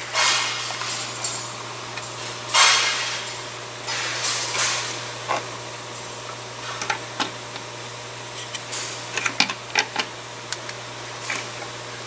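Plastic intake manifold and its hoses being handled and fitted back onto a Genesis G70 engine: scraping and rustling in the first few seconds, then a string of sharp, irregular plastic clicks and knocks as parts seat into place.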